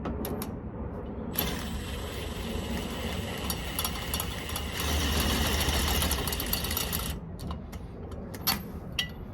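Impact wrench running down the new nuts on the leaf-spring U-bolts. It starts about a second and a half in, runs steadily for nearly six seconds and cuts off abruptly. A few light clicks of tools and hardware come before and after it.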